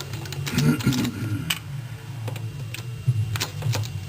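Irregular clicks and clinks of hand tools on metal engine parts while intake manifold bolts and harness fittings are worked loose, over a steady low hum. A cluster of quick clicks comes near the end.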